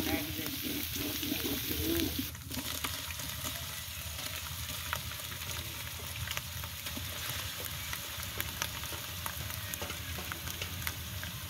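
Ground spices and paste frying in oil in a large aluminium pot, crackling steadily with many fine ticks while stirred with a bamboo stick.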